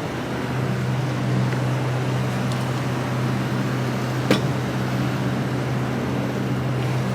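Steady low mechanical hum, like a motor or air conditioner running, with one sharp click about four seconds in.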